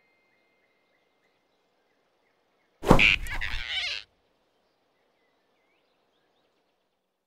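Cartoon sound effect of a quick grab: a sudden whoosh and thump about three seconds in that lasts about a second, with near silence before and after.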